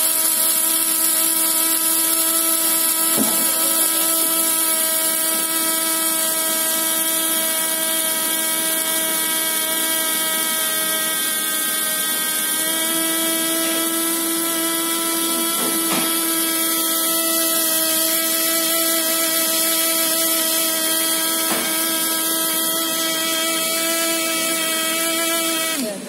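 Grocery Art electric coffee grinder's motor running steadily with a high whine while its button is held down. The pitch rises slightly about halfway through, and the motor cuts off suddenly at the end.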